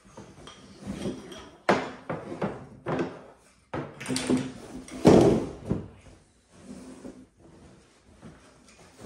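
Brown paper grocery bag rustling and crinkling as it is opened and handled, with sharp knocks of small wooden toy crates against a plastic table; the loudest rustle comes about five seconds in.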